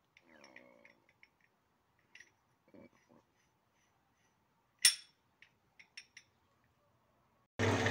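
Steel gears on a gearbox shaft clinking lightly as they are turned and slid by hand, with one sharp metallic click about five seconds in and a few light ticks after it. Just before the end, a metal lathe starts running loudly and steadily at a sudden cut.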